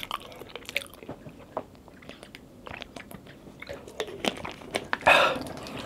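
Close-miked chewing and biting of a cheeseburger, with scattered wet mouth clicks and a louder, longer sound about five seconds in.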